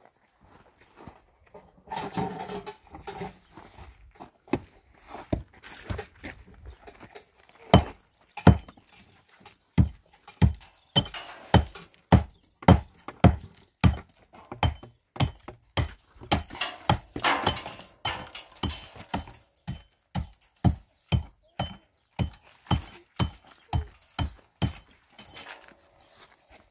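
A long series of dull knocks or thuds, roughly one to two a second, with a couple of short stretches of rustling or scraping between them.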